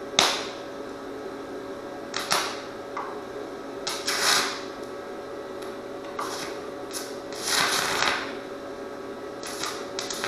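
Aluminium stick welding: the arc crackles and hisses in short, irregular bursts every second or two as the electrode strikes and burns. A steady electrical hum runs underneath.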